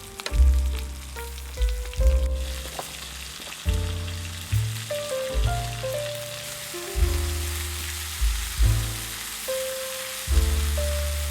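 Background music with a bass line and a melody, over a steady sizzling hiss.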